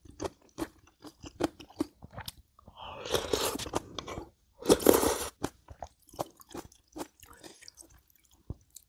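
Close-miked chewing of food with crisp crunching, a steady run of short chewing strokes broken by two longer, louder noisy bursts about three and five seconds in.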